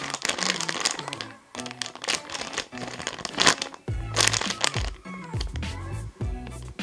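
Background music, its bass line coming in strongly about four seconds in, over repeated crinkling of plastic as squishies are handled.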